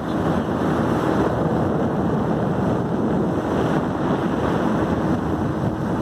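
Speedboat running at speed: a steady engine hum under the rush of the hull through the water and wind buffeting the microphone.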